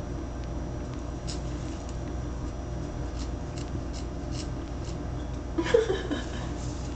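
Soft, scattered clicks and rasps of a cat licking and chewing a catnip-filled fabric toy, over a steady low hum. Near the end a brief louder sound with a falling pitch.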